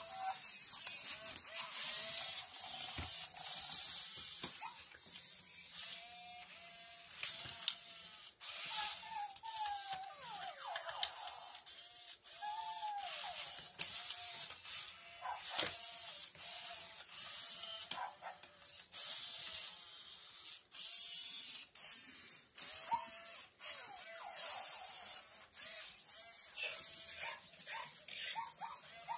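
Robot toy dogs' small gear motors whirring and clicking as they move, mixed with many short electronic chirps and gliding beeps.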